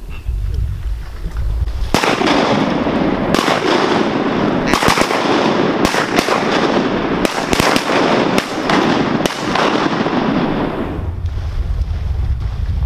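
A rapid, ragged volley of shotgun blasts, a dozen or more shots from several guns fired at a flock of ducks. It starts about two seconds in and dies away near the end.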